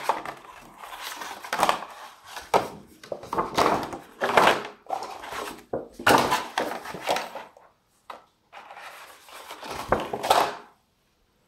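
Stiff glossy paperboard Dungeon Master's screen being handled, flipped over and unfolded above a cardboard box: a run of rustles, flaps and light knocks that stops near the end.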